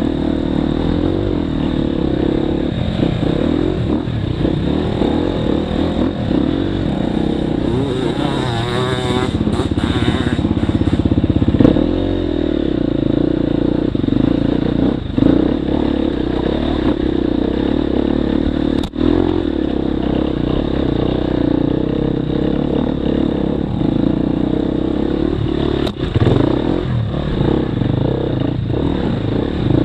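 Dirt bike engine running under way on a rough trail, heard from on the bike, its revs rising and falling in the middle. A few sharp knocks stand out over the engine.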